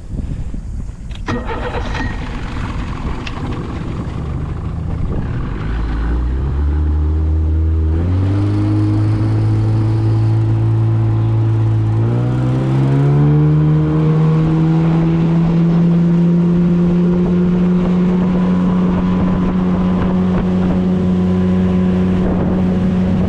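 Boat's outboard motor being throttled up, its pitch climbing in a few steps and then holding steady at cruising speed, with a rush of wind and water underneath.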